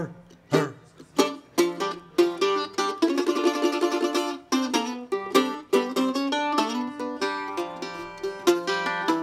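Solo F-style mandolin playing a slow tune with single picked notes, with a run of rapid repeated picking (tremolo) about three seconds in.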